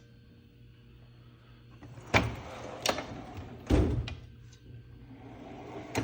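Metal drawers of a Craftsman rollaway tool chest sliding and banging, with several sharp clunks about two to four seconds in and a softer sliding rumble near the end.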